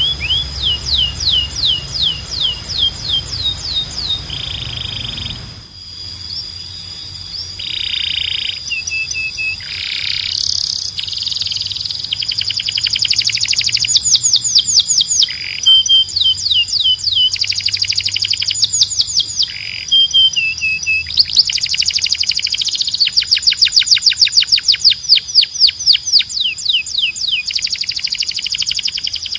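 Canary singing: fast trills of rapidly repeated sweeping notes alternating with short buzzy phrases and whistled notes, varied tour after tour.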